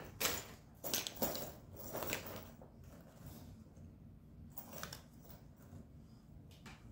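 Metal rings and chain strap of a chain-caged bag clinking and rustling as it is swung and handled: a quick run of short clinks in the first two seconds, then a few quieter ones near the end.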